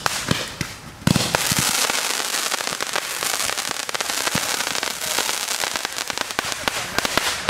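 Consumer fireworks going off: a few separate pops, then about a second in a dense, rapid crackling that carries on and thins slightly near the end.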